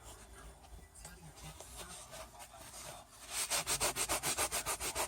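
A quick, even run of scraping strokes, about eight a second, starting a little after three seconds in.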